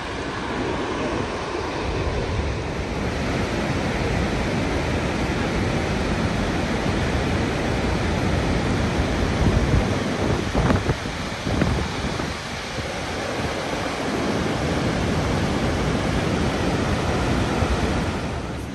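Steady rush of the Rhine Falls' white water pouring over the rocks and rapids, with wind buffeting the microphone. A few brief bumps about ten seconds in.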